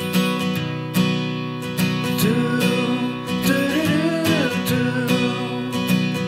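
Background music: strummed acoustic guitar with a steady beat, joined by a gliding melody line about two seconds in.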